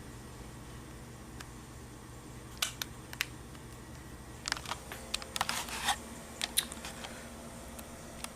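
Light plastic clicks and taps from a Motorola flip phone being handled, a few single clicks and then a quicker cluster, with a faint low hum joining about five seconds in.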